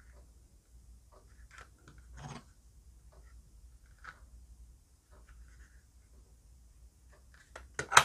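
Leather Zippo lighter pouches with metal belt clips being handled: soft leather rustles and scattered small clicks of the metal clips, with a brief scrape about two seconds in and a sharper cluster of clicks and knocks near the end.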